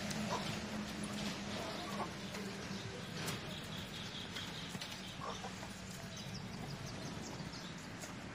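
Faint clucking of a hen over a low steady hum, with scattered short high calls.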